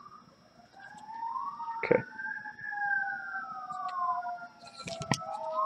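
Emergency vehicle siren wailing, two overlapping tones slowly rising and falling in pitch. A couple of sharp clicks are heard, one about two seconds in and another about five seconds in.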